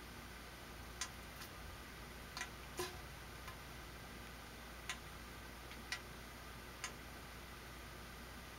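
About eight small, sharp clicks at uneven intervals over a faint steady hiss.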